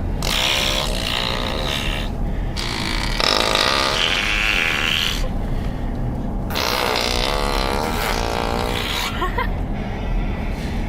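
Loud, raspy fart noises inside a moving car: three long blasts with short pauses between them, over the car's low steady hum.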